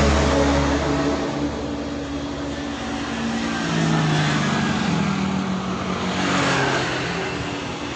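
An engine running nearby, a steady hum that slowly rises and falls in pitch and loudness.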